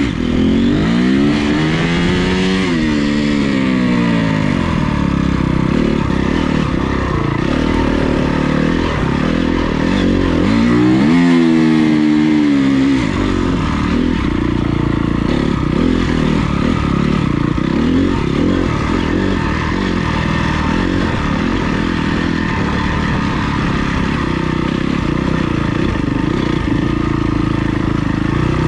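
Honda CRF250R's single-cylinder four-stroke dirt bike engine under way, heard from the rider, with the revs rising and falling as the throttle is worked; two quick surges in pitch stand out, one at the start and one about eleven seconds in, between steadier running.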